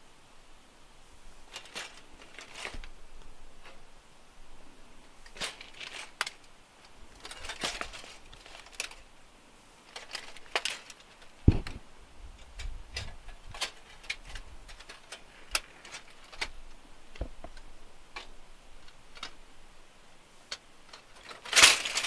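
Scattered clicks and short rustling handling noises, with a sharp knock about halfway through and a louder rustle near the end.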